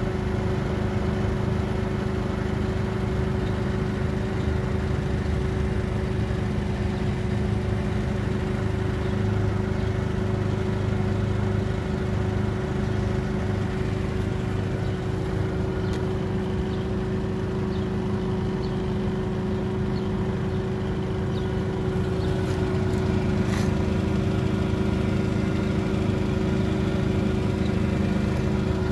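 Vehicle engine running steadily at constant speed, an even drone that holds the same pitch throughout with no revving.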